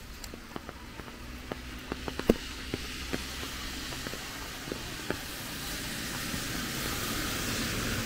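Outdoor ambience on a rainy walk: scattered sharp taps in the first half, then a hiss with a low hum growing steadily louder over the second half.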